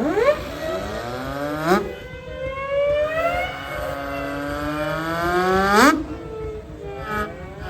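Several steam engine whistles blowing together in a loose chord, their pitches sliding up as the valves open and sagging as they close. A held chord climbs and ends in a sharp upward sweep about six seconds in, then the whistles die away.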